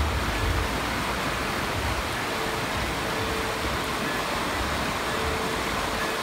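Fast-flowing rocky mountain stream running high after heavy rain, its water rushing and churning over stones in a steady hiss. A brief low rumble sits under it at the very start.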